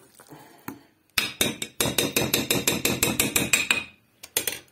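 A metal utensil beating thick grated-zucchini batter in an enamel bowl, clacking rapidly against the bowl at about seven strikes a second with a metallic ring, for a couple of seconds. A few separate knocks follow near the end.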